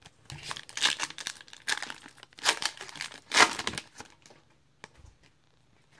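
Trading-card pack wrapper being torn open and crinkled, a run of irregular crackling bursts for about four seconds, then a few light clicks.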